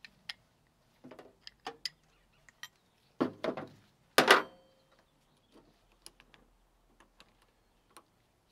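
Small metallic clicks and clinks of a ring spanner and hydraulic fittings being handled, with two louder clunks about three and four seconds in as metal parts are set down on the tractor's steel bonnet, the second ringing briefly.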